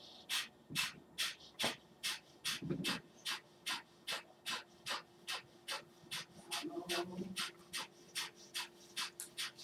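Kapalbhati breathing: a man's rapid, forceful exhalations through the nose, each a short sharp puff of air, evenly paced at about two and a half a second.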